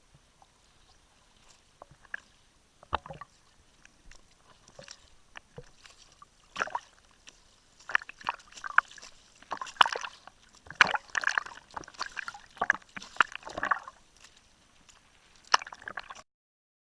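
Water splashing and sloshing against a sailing dinghy's hull in irregular splashes, busiest in the second half, then cutting off suddenly near the end.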